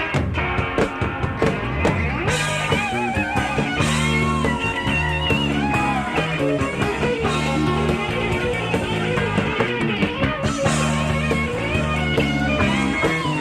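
Live rock band playing an instrumental passage from a cassette recording: an electric lead guitar plays bending, wavering lines over drums and bass, with cymbals coming in about two seconds in.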